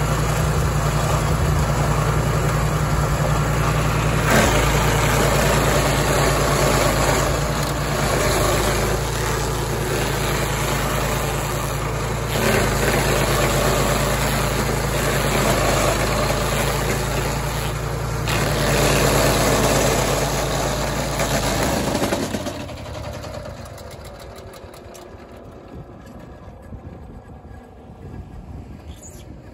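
Walk-behind stump grinder's petrol engine running under load while its toothed cutting wheel grinds a tree stump into chips: a steady engine hum under coarse, noisy chipping. About three-quarters of the way through, the engine stops and the noise drops away.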